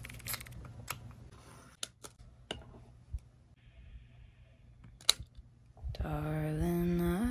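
A few scattered sharp clicks, the loudest about five seconds in, with a short soft hiss just before it. About six seconds in a song with a sung melody begins and gets louder.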